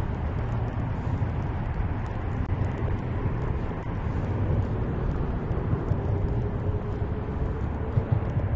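Steady low rumble of road traffic on a highway overpass, with a faint engine note slowly rising in pitch through the middle.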